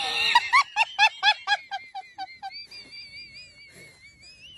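A person laughing in quick, honking bursts, about five a second, that fade away and give way to a thin, high, wavering squeal.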